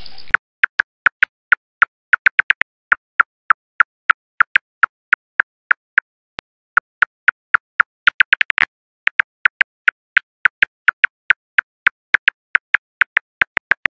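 Bat echolocation calls made audible by a bat detector: a rapid, irregular train of sharp clicks, about four a second, with brief pauses about six seconds in and again near nine seconds in.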